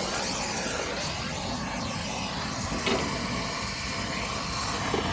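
Gas brazing torch flame burning steadily with a rushing hiss as it heats a copper pipe joint, with one short metallic tick about three seconds in.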